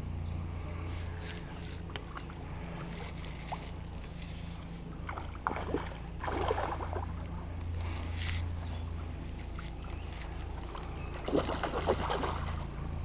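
A hooked carp splashing and thrashing at the surface close to the bank as it is played in on a rod. The splashing comes in two bursts, about five to seven seconds in and again near the end, over a steady low rumble.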